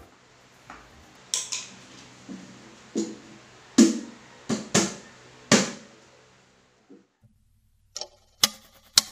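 Irregular hand taps and knocks on the plywood panel of a homemade cajon box, each with a short boxy ring. After a pause, a few sharp drumstick hits come near the end.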